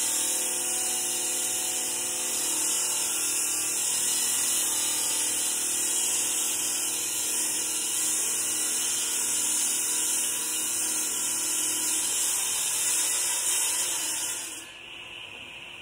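Masonry chop saw's blade grinding through an 8-inch concrete block, a loud, steady, high hiss. About fourteen and a half seconds in the grinding drops off suddenly as the cut finishes, leaving the saw spinning much more quietly.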